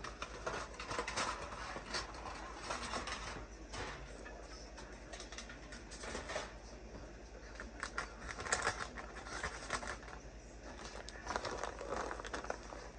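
Light clicking and clattering of kitchenware being handled, in several short clusters: at the start, around two to three seconds in, around eight to nine seconds in, and again near twelve seconds.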